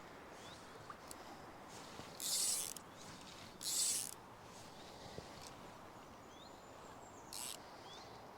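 Outdoor riverside ambience: a steady hiss of flowing water with faint bird chirps, broken by three short, loud hissing swishes, about two seconds in, about three and a half seconds in, and near the end.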